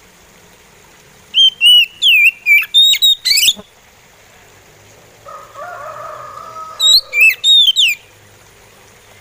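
Oriental magpie robin singing: two loud phrases of clear, slurred whistled notes about five seconds apart, with a quieter, lower warble between them.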